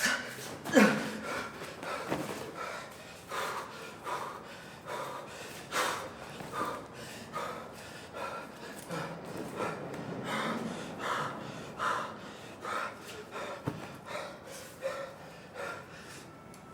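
A person breathing hard in short, uneven bursts, about one or two a second.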